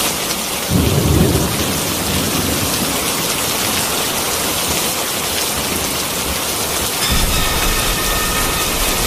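Steady heavy rain with a rumble of thunder about a second in, and the low rumble swells again near the end.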